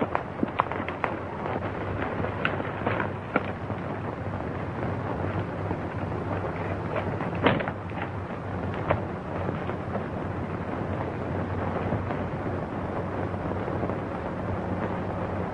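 Steady hiss and crackle of a worn old optical film soundtrack, with scattered clicks and pops; the sharpest pop comes about seven and a half seconds in.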